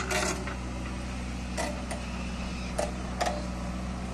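JCB 3DX backhoe loader's diesel engine running steadily as the backhoe digs, with about five sharp metallic clanks from the bucket and its linkage.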